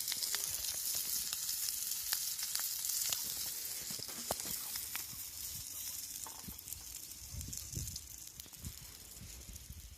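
Food sizzling in a hot pan, with many small pops and crackles. It starts loud and fades gradually as it goes on.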